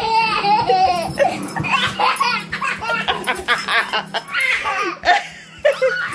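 A toddler laughing and giggling in a string of short, high bursts, with a brief lull about five and a half seconds in.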